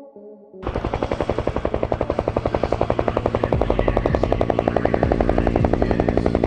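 Two-bladed helicopter's rotor chopping: a rapid, even beat of blade slaps, roughly ten a second. It starts suddenly about half a second in and grows slightly louder.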